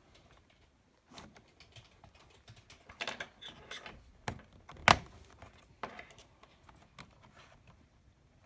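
Pry tool working along the seam of a Lenovo ThinkPad T470's plastic bottom cover: irregular clicks and scrapes as the cover's retaining clips are levered loose, with one sharp snap about five seconds in.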